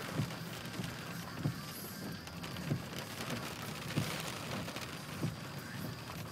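Rain pattering on a car with a steady hiss, heard from inside, and a low thump repeating evenly about every second and a quarter.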